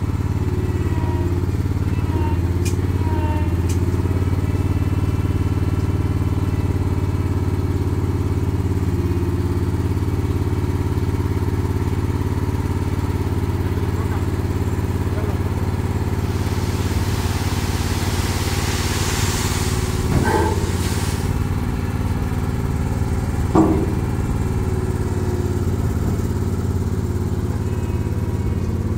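A vehicle engine running steadily with a low, even hum. A rushing hiss swells for a few seconds past the middle, and two short knocks come later on.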